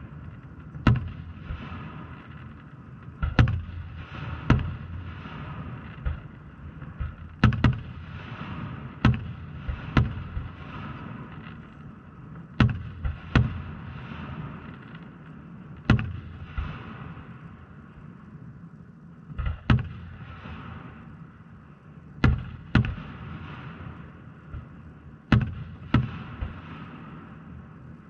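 Aerial firework shells bursting: about twenty sharp bangs at irregular intervals, some in quick pairs, over steady background noise.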